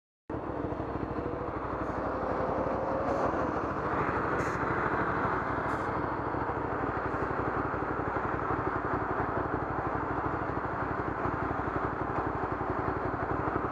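Hyosung motorcycle engine idling steadily while the bike stands in traffic, with the noise of surrounding traffic.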